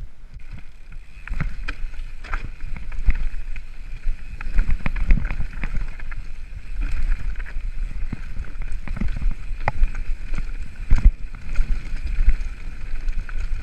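Mountain bike rolling down a rocky, loose singletrack: a steady low rumble of wind and tyre noise on the camera microphone, broken by frequent sharp knocks and rattles as the bike bounces over stones.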